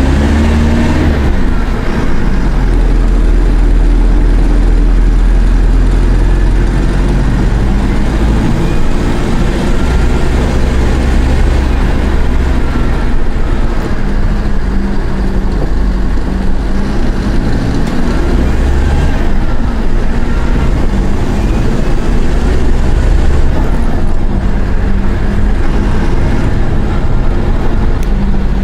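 Mercedes-Benz OF-1418 bus's six-cylinder turbo diesel engine running under load as the bus is driven, its pitch rising and falling several times as it is worked through the five-speed gearbox.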